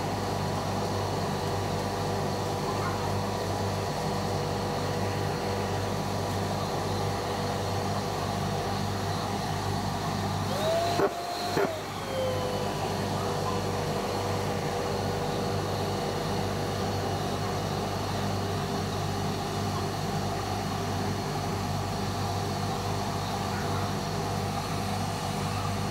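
Dust extractor running steadily, drawing through the hose of a sanding pad worked over primer on a car door. About eleven seconds in, its whine briefly rises in pitch and falls back, with a click.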